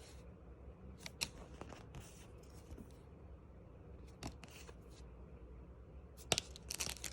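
Pokémon trading cards and a booster pack wrapper being handled: scattered light clicks and short rustles, with a denser run of rustling near the end.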